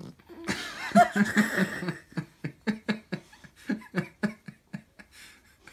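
A person laughing heartily: a string of short "ha" bursts, about three to four a second, dying away near the end.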